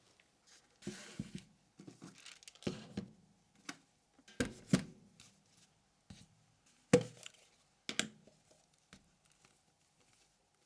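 Hands handling coffee-making gear: a short rustle about a second in, then a string of sharp knocks and clicks, the loudest about seven seconds in.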